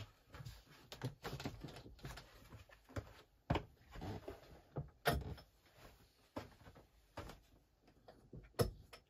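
Scattered soft knocks and clicks of a person moving about and handling a motorhome's overhead drop-down bed. The sharpest knocks come about three and a half, five and eight and a half seconds in.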